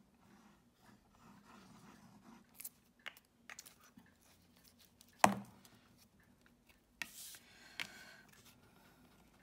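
Handling of cardstock and a liquid glue bottle: soft paper rustles and small clicks, one sharp knock about five seconds in, then a brief rustling slide as a paper panel is laid onto a card and pressed.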